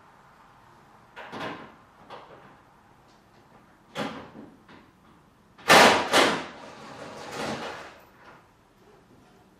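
A string of separate knocks and clunks from work on a convertible top's frame and window, the loudest a pair of bangs close together about halfway through, with a scraping spell after them.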